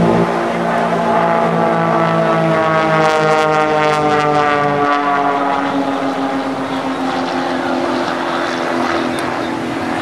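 Piston engines and propellers of two Christen Eagle aerobatic biplanes flying in formation, a loud drone that sweeps down in pitch as they pass, about three to five seconds in.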